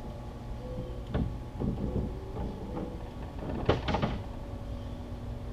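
Bennett 12-volt trim tab hydraulic power unit's pump motor running steadily, driving the trim tab actuator up while the tabs are cycled to purge air from the system. A few sharp knocks sound over it, the loudest about three and a half seconds in.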